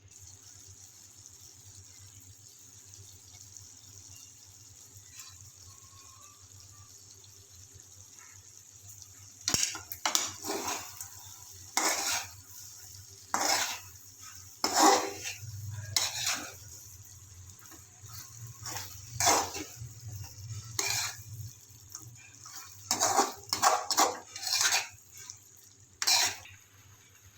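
A spatula scraping and stirring in a metal cooking pan, in irregular strokes starting about a third of the way in, over a steady high sizzle of chicken frying.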